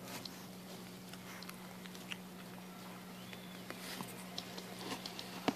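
A 31-day-old Maltese puppy chewing soft chunks of puppy food off a plate: small scattered clicks and smacks over a steady low hum, with one sharp tap near the end.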